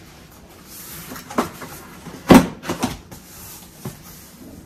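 Large cardboard air fryer box being handled and turned on a countertop: a few dull knocks and bumps, the loudest a little past halfway through, with cardboard scraping between them.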